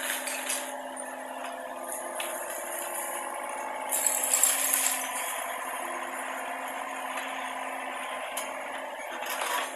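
Mini excavator's engine running steadily while building rubble rattles and clinks as it is shifted, with a louder burst of clattering debris about four seconds in.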